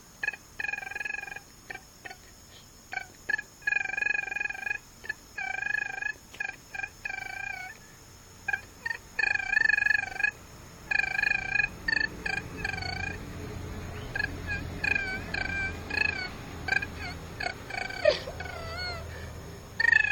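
Crickets chirping in a steady high trill, over which a high, wavering, warbling call repeats in short phrases of under a second each.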